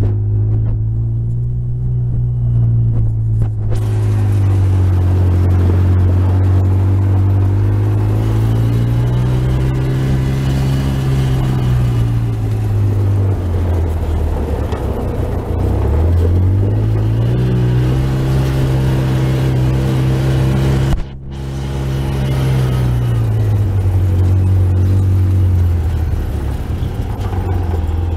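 Side-by-side ATV engine running while it drives, heard from the open cab, its pitch rising and falling several times as it speeds up and slows down. Rushing wind and road noise builds from about four seconds in. The sound drops out for a moment about two-thirds of the way through.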